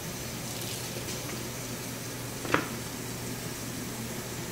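Hands handling a raw whole chicken on a foam meat tray, with one sharp tap about halfway through, over a steady background hiss and low hum.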